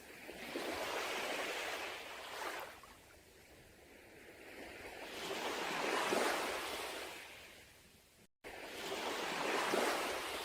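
Sea waves washing onto a beach: three surges of surf, each swelling and then fading away, the middle one the loudest.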